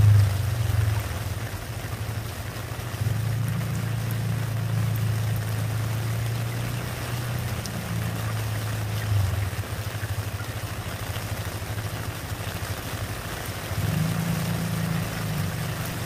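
Rain falling steadily and splashing into a puddle, with a low rumble underneath that rises and falls.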